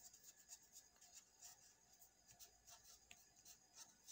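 Faint scratching of a pen writing on paper: many short strokes in quick succession as letters are formed.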